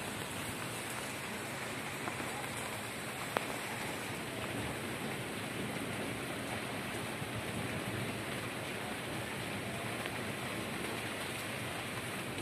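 Steady rain falling, an even hiss with no let-up, with a single sharp click about three seconds in.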